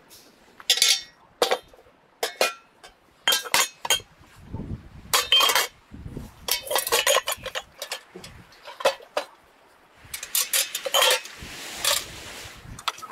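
Glass bottles clinking against each other and against an enamel bucket as they are set into it: a long series of sharp, irregular clinks with short ringing. Near the end a steady rustling scrape runs under further clinks as the loaded bucket is handled.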